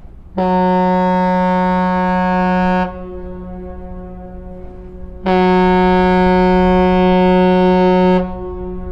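Ship's horn of the Ogasawara Maru ferry entering port: two long, steady blasts, the second slightly longer, with the tone lingering faintly between them.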